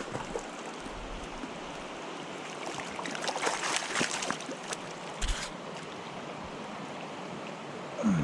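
Shallow mountain stream running over a riffle, with a flurry of brief clicks and rustles about three to five seconds in and one low thump just after.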